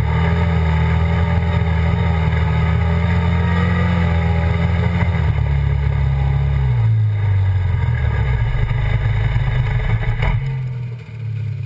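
ATV engine running at steady high revs while riding on sand, then dropping in revs about seven seconds in as the quad slows. A short knock and a dip in the engine near the end as it eases off further.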